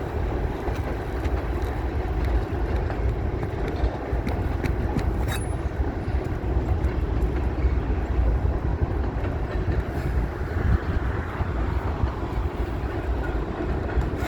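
Wind buffeting the microphone: a steady, gusty low rumble, with a few faint clicks about four to five seconds in.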